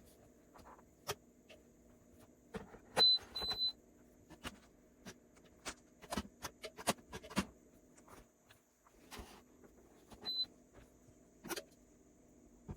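Electric kettle's control panel beeping: two short high beeps about three seconds in and one more near ten seconds. Scattered clicks and knocks come between them, over a low steady hum.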